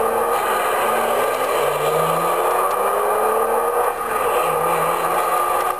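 Car engine accelerating, its pitch climbing, dropping back once as it shifts gear about a second and a half in, then climbing again.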